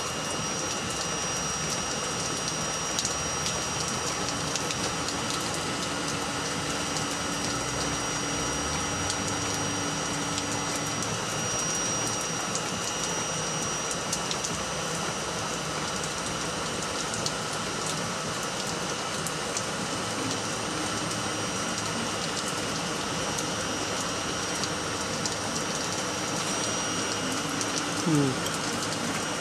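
Looftlighter electric charcoal lighter blowing superheated air into lump charcoal, a steady fan whir and hiss, while the charcoal is slow to catch. Near the end there is a brief low sound that rises and falls in pitch.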